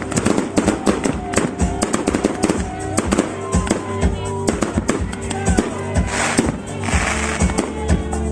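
Fireworks going off in quick succession: many sharp bangs and crackles, a few short whistles, and a spell of hissing crackle near the end, over music with a steady bass.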